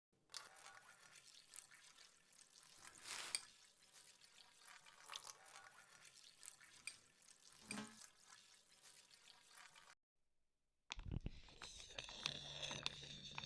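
Faint water dripping and trickling: many small irregular drips over a soft splashing noise, lasting about ten seconds. After a second of silence, music with held low notes begins near the end.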